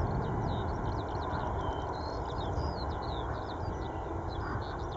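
Distant Boeing 747-400 freighter's jet engines rumbling as it slows after landing, the noise gradually fading, with many small birds chirping and twittering throughout.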